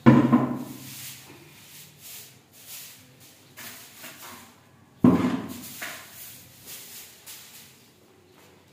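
A soft grass broom sweeping a stone-tiled floor in short, quick swishes. Two loud knocks come about five seconds apart, each with a short ringing tail.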